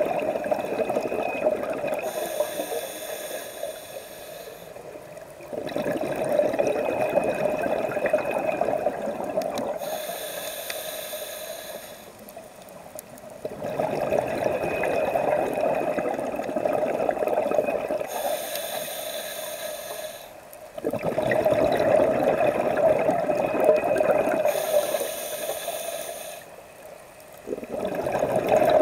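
Scuba diver breathing through a regulator underwater: slow breath cycles about seven to eight seconds apart. Each has a long airy rush with bubbling, then a shorter, higher hiss, and the cycle repeats four times.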